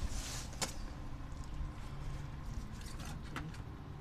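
Handling noises as a person shifts about under a truck: a brief rustle at the start, a sharp click just after, and another click near the end, over a low steady rumble.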